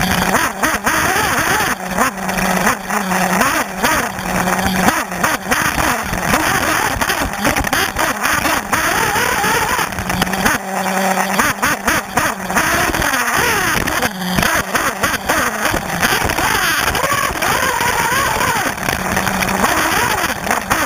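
1/8-scale nitro RC buggy's Alpha Dragon glow engine, heard from on board, revving up and down over and over as the buggy races, with frequent knocks and rattles from the chassis.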